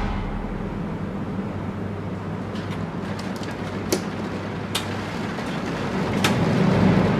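Room tone ambience: a steady low machinery hum with an even rushing noise over it. Three sharp clicks fall in the middle, and the hum swells a little near the end.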